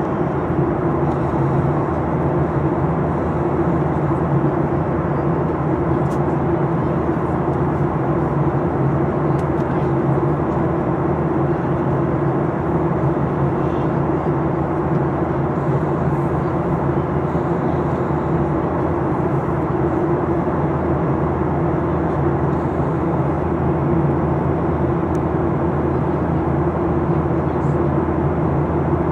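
Cabin of a Boeing 737-800 in flight: the steady drone of its CFM56 jet engines with a constant hum and airflow rush, unchanging throughout.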